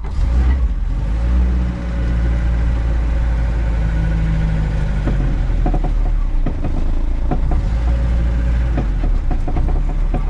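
Lada VAZ-2104's four-cylinder engine running as the car drives off, its pitch rising twice as it pulls away. From about halfway through, a scatter of short clicks and knocks joins in.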